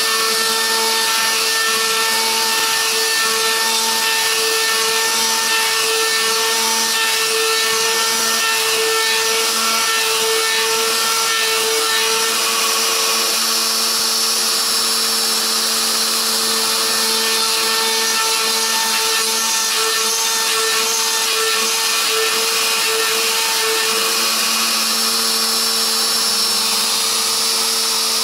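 CNC router spindle running with a steady high-pitched whine while its small end mill bores holes into an oak board, over a constant hiss of cutting.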